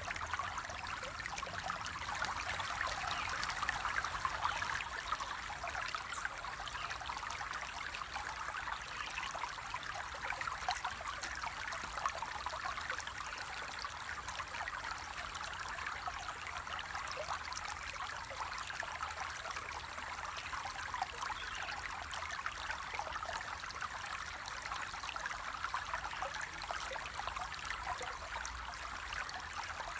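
Water flowing in a stream, a steady trickling and babbling that keeps on without pause.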